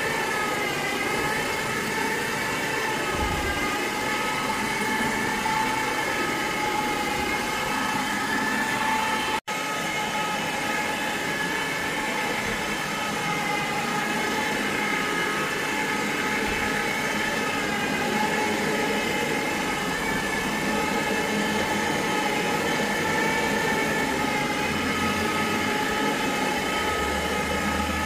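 A motor running steadily with a high whine made of several steady tones; the sound cuts out for an instant about nine seconds in.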